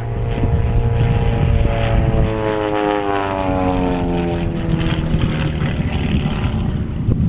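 Aerobatic propeller plane's piston engine and propeller running hard overhead, the drone's pitch falling steadily through the middle of the run.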